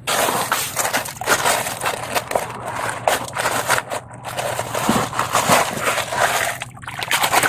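Continuous crackling, scraping noise of a plastic toy truck being handled, with a brief dip about four seconds in and another near the end.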